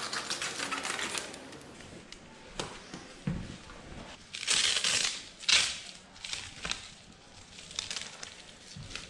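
Leatherman Raptor trauma shears snipping through a cloth trouser leg, then cloth rustling and being ripped apart, with two loud rips about halfway through and a soft thump shortly before them.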